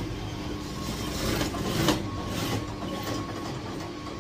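Industrial sewing machine running, stitching a seam through cotton blouse fabric, with a rhythmic clatter.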